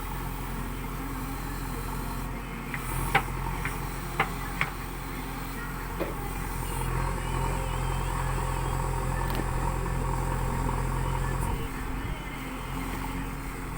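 JCB 3DX backhoe loader's diesel engine running steadily, with a few sharp knocks about three to four and a half seconds in. The engine note grows stronger about seven seconds in and drops back suddenly about eleven and a half seconds in.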